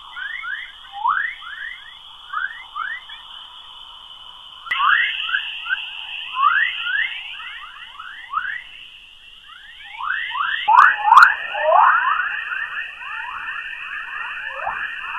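Sonified planetary radio or plasma-wave recording: a steady high hum under a dense run of quick chirping pitch sweeps. The texture changes abruptly about 5 seconds in and again about 11 seconds in, as one clip is spliced to the next.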